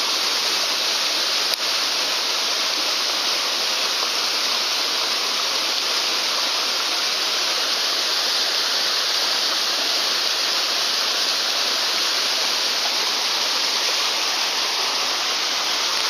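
Small cascade on a mountain trout stream pouring into a plunge pool: a steady, even rushing of water.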